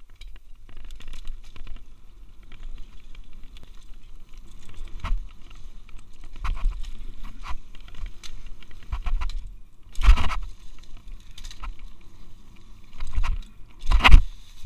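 Mountain bike descending a dirt trail covered in dry leaves, heard from a helmet-mounted camera: the tyres roll and crunch over the ground while the bike rattles. There are two loud jolts, one about ten seconds in and one near the end.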